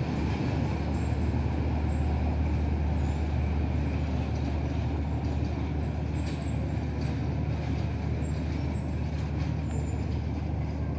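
Steady low drone of a diesel engine from a train at the station, running evenly, with a faint haze of rail and station noise above it.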